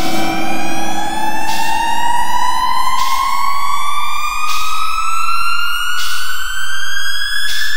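Experimental electronic music: a synthesized tone glides slowly and steadily upward like a siren, with a short hit of noise about every second and a half. A lower steady hum underneath fades out about halfway through.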